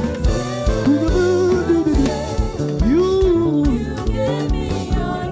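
Live gospel praise music: a band with drums and bass playing under a singer's long, arching sung notes.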